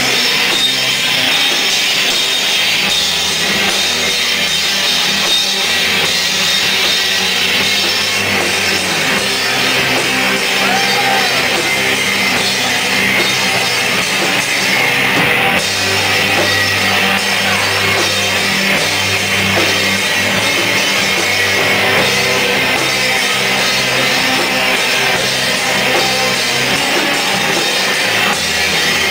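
Live rock band playing loud and without a break: drum kit and guitar.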